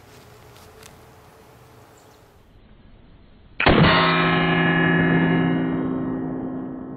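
A single shot from a Colt Single Action Army revolver in .45 Colt about three and a half seconds in, followed at once by a steel target ringing with several steady tones that fade slowly over about three seconds: a hit on the steel.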